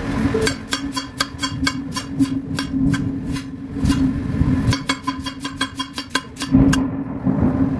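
Kitchen knife slicing raw potatoes thin, the blade knocking on a granite countertop in quick sharp clicks, several a second, over a steady low hum.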